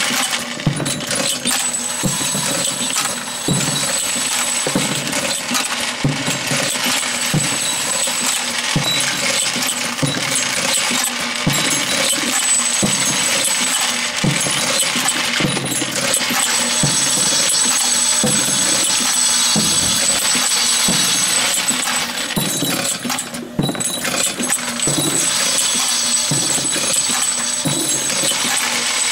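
Camdex 2300 Series automatic rifle-cartridge loading machine cycling: a rhythmic clunk about once a second, with metallic clinking of brass cases, over a steady high hiss.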